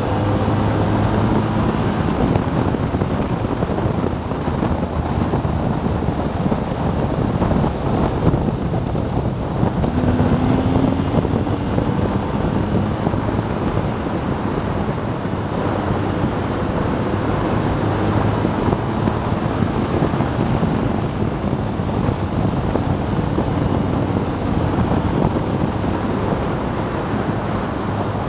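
Steady wind noise buffeting the microphone of a BMW R 1200 GS Adventure motorcycle riding at about 80 km/h, with the bike's flat-twin engine running underneath, its pitch drifting gently up and down with the throttle through the curves.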